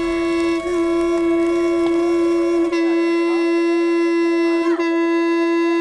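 A large hand-held horn blown by mouth in one long, steady note, wavering briefly about three seconds in and again near the end.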